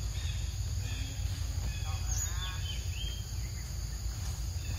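Outdoor ambience of a low steady rumble with birds chirping and insects. A short wavering call comes about two seconds in.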